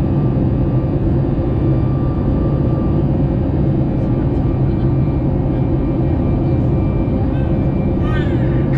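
Steady cabin noise of a Boeing 737 MAX 8 in the climb, recorded at the window beside its CFM LEAP-1B engine: a dense, even rumble with a few steady humming tones under climb thrust.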